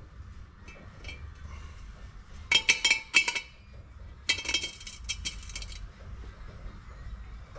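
Metal clinking as a brass fitting and washer knock against the thin wall of a metal pot while the fitting is pushed through a hole and fastened from inside. There is a tight cluster of sharp, ringing clinks about two and a half seconds in, then a longer rattle of clinks a little after four seconds.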